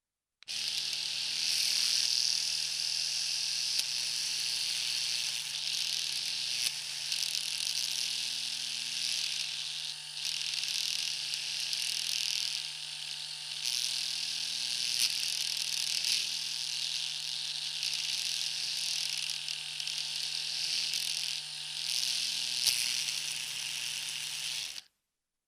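Electric shaver running, with a steady motor hum under a high buzzing hiss that swells and dips every second or two as it is moved. It starts about half a second in and cuts off suddenly near the end.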